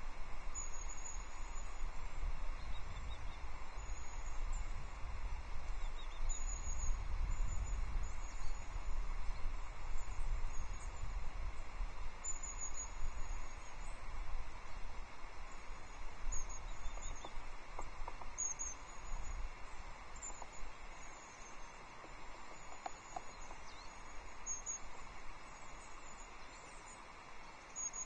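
Small songbirds giving short, high-pitched chirps, repeated irregularly, over a steady low rumble of wind on the microphone.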